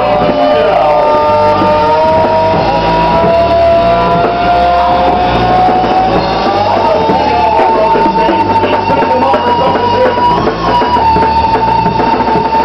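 Loud rock music with long, slowly gliding electric guitar notes held over a bass line.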